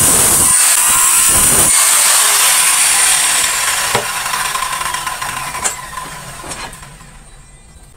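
An electric woodworking power tool running on wood with a steady high whine and a few sharp knocks. After about three seconds it dies away gradually.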